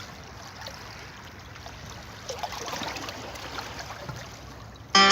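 Steady low hiss with faint scattered crackles. At the very end, folk music with a plucked string instrument starts abruptly and loudly.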